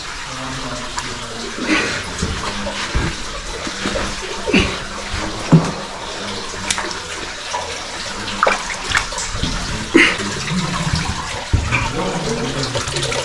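Water sloshing and splashing as people wade through deep water in a cave passage, with a steady wash broken by several sharp splashes.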